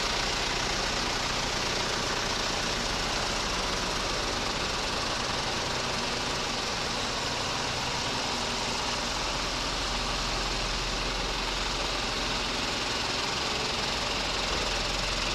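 Engines of a line of parked Japanese army light utility trucks idling together, a steady, even hum.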